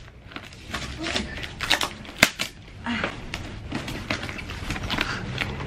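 Packing tape and a cardboard box being torn open by hand: crackling, rustling and a run of sharp clicks as the tape and flaps are pulled, the loudest a sharp snap about two seconds in.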